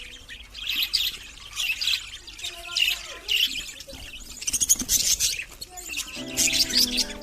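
Budgerigar chick's begging chirps in quick repeated bursts as its mother feeds it. Background music comes in near the end.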